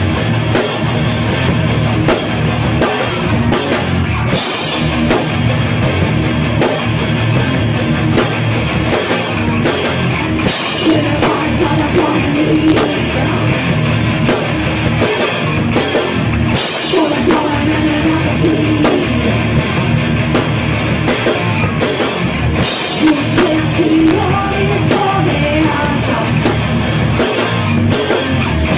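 Rock band playing live: electric guitars, bass guitar and drum kit.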